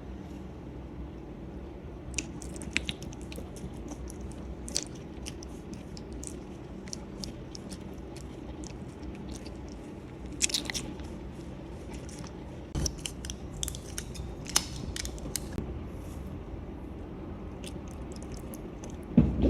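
Cats chewing and crunching on something hard, in scattered bursts of sharp crunches with pauses between, over a steady low hum.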